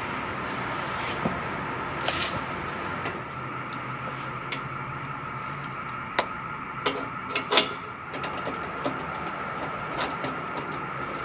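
Scattered metallic clicks and knocks of work on a newly fitted exhaust Y-pipe, with several close together around the middle, over a steady hum.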